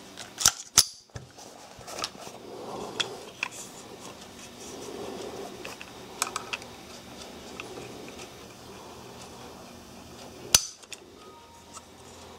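Browning Buck Mark .22 pistol being handled, with a few sharp metal clicks near the start, then one loud click about ten seconds in as the trigger breaks and the hammer falls under the pull of a trigger pull gauge, at about 3.5 pounds.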